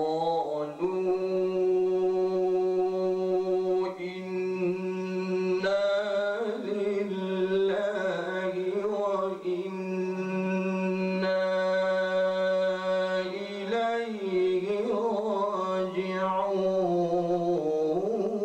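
A man reciting the Quran in the melodic tilawat style, solo voice holding long drawn-out notes with ornamented turns of pitch, in a few long phrases with brief breaths between them.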